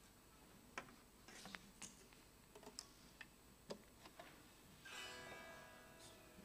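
Near silence with scattered faint clicks and taps of instruments being handled, the acoustic guitar being picked up and adjusted. About five seconds in, a faint guitar note or strum rings briefly and fades.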